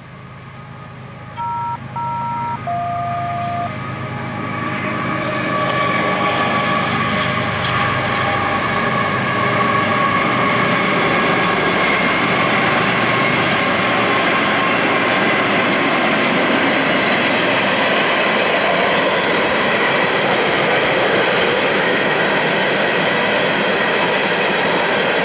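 Freight train led by a GE ES44AC diesel locomotive approaching and crossing a bridge: engine and wheel noise build from about four seconds in to a steady, loud rolling of loaded hopper cars over the rails from about ten seconds on. About two seconds in, a horn sounds two short notes and then a longer, lower one.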